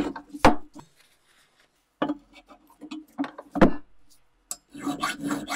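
Steel axe head knocked and clanking against a steel bench vise as it is set and clamped in the jaws, with a low ringing after the knocks. About five sharp knocks in the first four seconds. Near the end, quick rasping strokes of a file on the metal begin.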